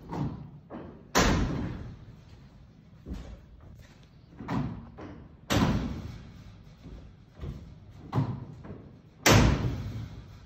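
Retractable telescopic bleacher seating being handled: three loud slams about four seconds apart, each ringing out in the hall, with lighter knocks and thuds between them.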